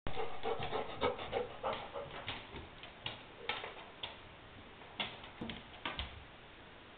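Puppy and adult dog playing over a plush toy on a hardwood floor: a quick run of short clicks and knocks, thickest in the first couple of seconds, sparser after, and ending about six seconds in.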